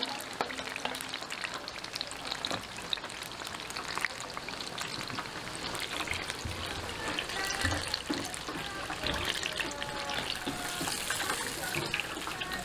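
Food frying in hot oil: a steady crackling sizzle with many small pops.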